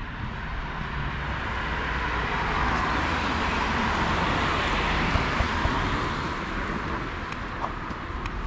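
A passing vehicle: a rushing noise that swells to a peak about halfway through and fades away again, over a steady low background rumble.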